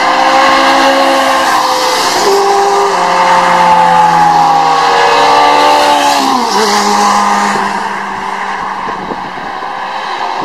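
A Ferrari 360 Spider's V8 and a Porsche's engine driving past on a race track, revving up and dropping back through gear changes. The engine note falls sharply about six and a half seconds in and fades as the cars pull away.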